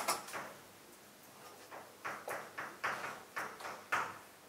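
Chalk writing on a blackboard: a string of short taps and scratches as symbols are written. One sharp stroke comes at the start, and after a quieter second or so a quick run of about seven more follows.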